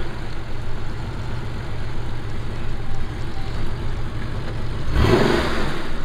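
Air-cooled Porsche 911 flat-six running at low speed as the car rolls past, with a short, loud rise in revs about five seconds in.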